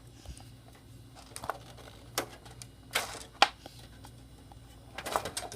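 Scattered clicks, knocks and rustles of hands handling computer parts and cables, with a cluster of knocks near the end.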